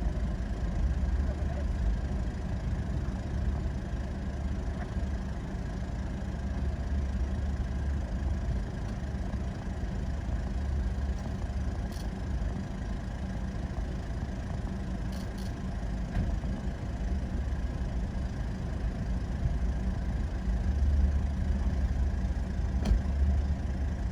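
Vehicle engine running with a steady low rumble, and a few faint clicks.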